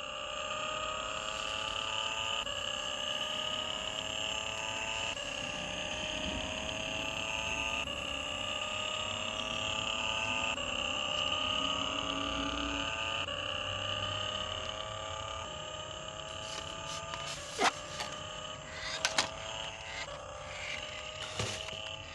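Remote-control toy car's built-in engine sound effect playing on a loop: a rising revving tone that restarts about every two and a half seconds over a steady hiss. A few sharp clicks come near the end.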